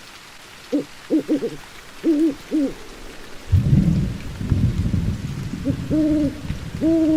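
Owl hooting: a quick run of short hoots, then two longer, drawn-out hoots near the end. From about halfway a low rumble of thunder and rain runs under them.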